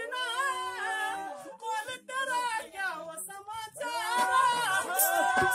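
Unaccompanied folk singing of a Dogri geet: a voice holding long, wavering, bending notes. A rattle starts in near the end.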